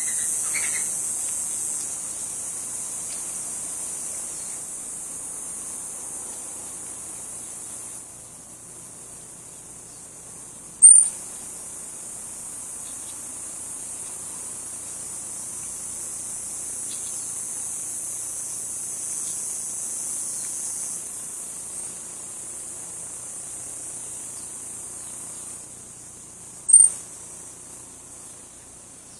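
Insects droning steadily at a high pitch, dropping in level about eight seconds in and again near the end. Two short sharp clicks, one about eleven seconds in and one near the end, are the loudest sounds.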